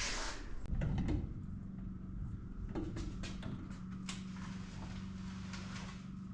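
Scattered light clicks and knocks, typical of a car being shifted on wheel dollies in a garage, over a steady low hum that sets in about a second in.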